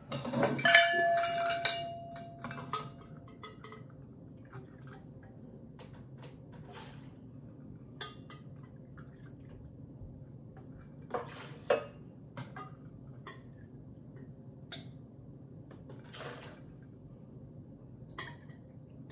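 Metal measuring cups clattering, with a loud ringing clink in the first two seconds, then scattered light clinks and knocks as they are handled against a plastic pitcher.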